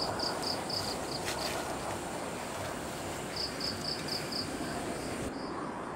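An insect chirping outdoors in a regular series of short, high pulses, about four a second, pausing in the middle and starting again, over a steady high drone and a background hiss. Near the end the high drone cuts off abruptly.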